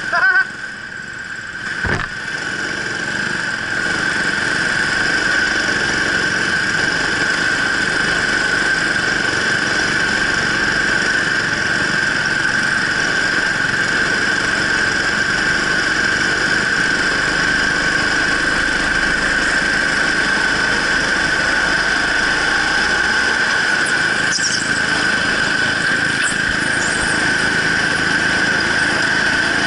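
Racing go-kart running with a steady high-pitched whine that grows louder over the first few seconds and then holds even. There is a short click about two seconds in.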